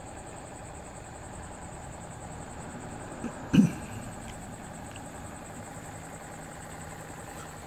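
A steady, even machine-like hum, with a single short knock about three and a half seconds in.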